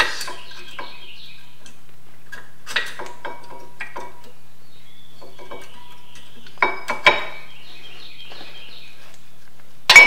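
Metal clinks and clicks of new brake pads being pushed between the spring clips of a disc-brake caliper bracket and seated. There are sharper snaps about seven seconds in and again at the very end as a pad clicks into place.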